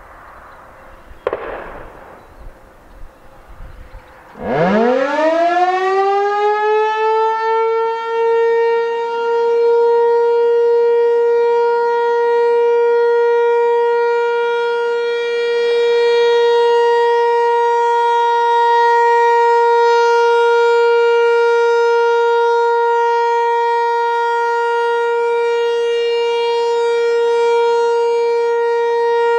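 American Signal T-128 rotating electromechanical warning siren winding up from standstill about four seconds in, its pitch rising over a few seconds into one steady tone, which it then holds as the alert signal for a tornado drill. The sound swells and eases slightly as the horn rotates.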